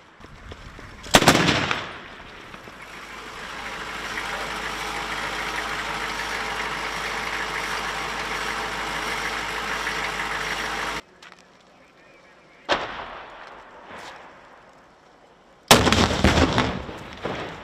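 Close-combat gunfire and blasts: a loud single report about a second in, then a long stretch of steady vehicle engine noise that stops abruptly. Another single shot follows, and near the end a loud blast with rapid echoing reports as a shoulder-held tube launcher is fired.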